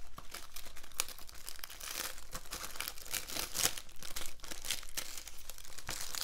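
Plastic shrink-wrap being peeled and torn off a Blu-ray case, with irregular crinkling and crackling throughout.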